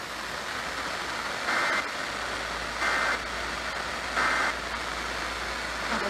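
Three short bursts of Emergency Alert System digital data tones (SAME) from a radio speaker, each under half a second and evenly spaced, over steady radio hiss. The short bursts are typical of the end-of-message code that closes an alert.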